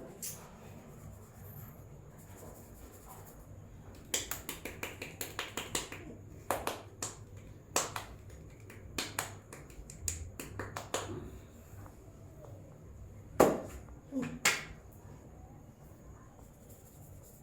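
Sharp cracks and snaps from a barber's hands during a traditional Indian head massage. A quick run of cracks starts about four seconds in, scattered ones follow, and two louder slaps come near the end.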